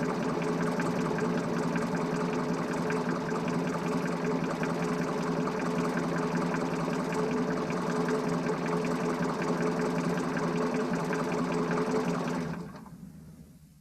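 A machine running steadily, a constant hum with fast ticking in it, which fades out near the end.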